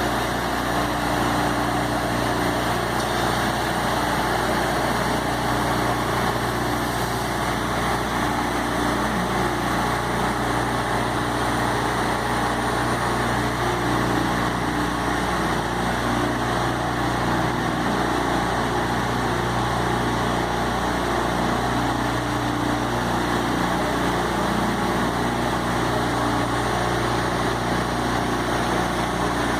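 Battery-powered ride-on floor scrubber-dryer running, its motors making a steady mechanical drone that does not change.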